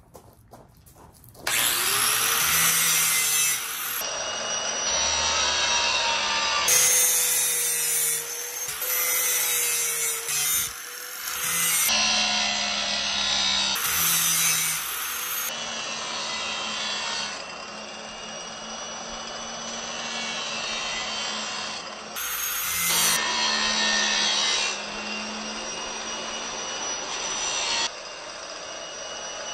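Electric angle grinder starting up about a second and a half in, then running, its disc grinding a steel edge in passes, so the grinding noise swells and eases over a steady motor hum.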